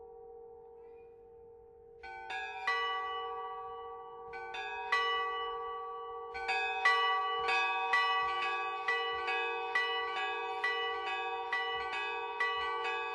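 Several church bells of different pitches ringing in an Orthodox-style peal. A fading ring gives way to a few separate strikes about two seconds in, then from about six seconds in a steady run of about two strikes a second, each note left ringing.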